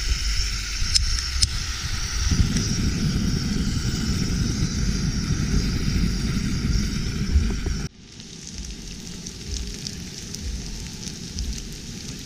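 Portable gas canister camping stove: gas hissing with a couple of clicks about a second in, then the burner catches about two seconds in and burns with a steady rushing noise. About eight seconds in the sound changes abruptly to crumbed fillets frying in shallow oil in a pan, a softer sizzle with crackles.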